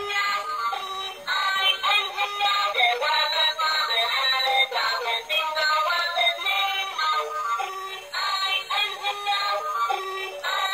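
Tinny electronic tune with a synthesized singing voice, thin and without bass, played through the small speaker of a battery-operated light-up toy train.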